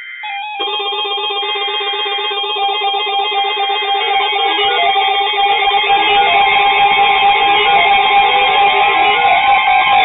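Music led by guitar, with repeating stepped melodic notes, growing gradually louder.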